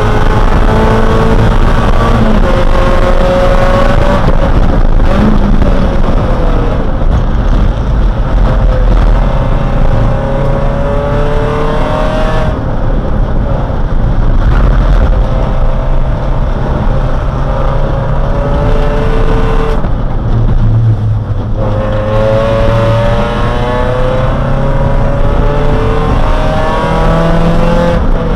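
Race car's engine heard from inside the cabin at full throttle, its pitch climbing through the revs in repeated pulls and dropping back at each shift. The engine note eases off briefly twice, about midway and again about two-thirds of the way in.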